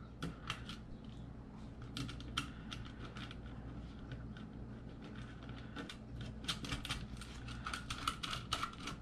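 Light, irregular clicks and taps of small metal hardware (washers, terminal and nut) being fitted onto the stud of a plastic automotive-style fuse block, with the block handled on the table. The clicks come in two denser clusters, one around two seconds in and one near the end.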